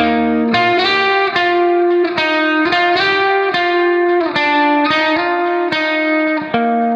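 Background music: a plucked guitar melody, several notes a second.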